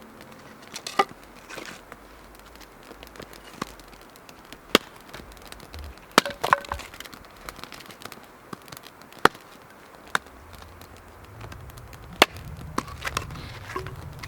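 Freshly lit campfire crackling, with sharp, irregular pops and snaps of burning wood. A low rumble builds near the end.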